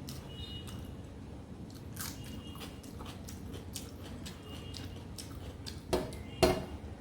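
Close-miked chewing of rice and mutton curry, with many short wet mouth clicks and smacks; two louder smacks come near the end.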